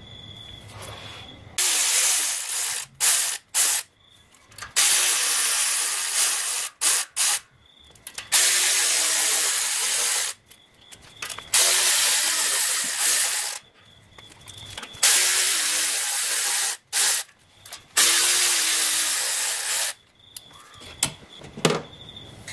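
A handheld power tool run in about six bursts of roughly two seconds each, spinning bolts out of the engine.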